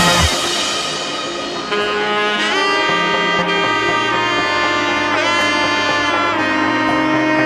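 Background music led by a saxophone-like wind instrument, playing long held notes with several bends in pitch.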